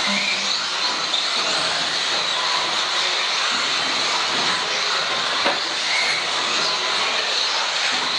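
Several electric radio-controlled off-road cars racing on a carpet track: a steady high whine and hiss of motors and tyres, with a single sharp knock about five and a half seconds in.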